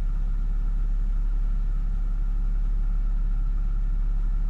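Car engine idling steadily, heard from inside the cabin as a low, even rumble.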